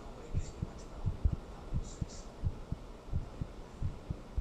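A human heartbeat recorded close up: paired low thumps (lub-dub) repeating steadily, a little under one and a half beats a second, over a steady low background hum, with a few faint brief rustles.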